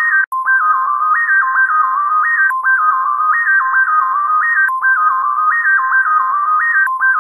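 A phone ringtone: a simple electronic melody of high, pure beeping notes, one short phrase repeating about every two seconds.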